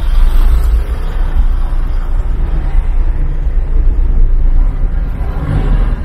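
Low, steady rumble of a car driving slowly in city traffic: engine and road noise heard from inside the vehicle.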